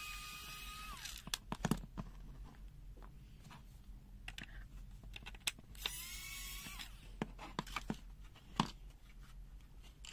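Small electric screwdriver's motor whining in two short runs, one ending about a second in and another around six seconds in, between scattered sharp clicks and taps of small parts being handled.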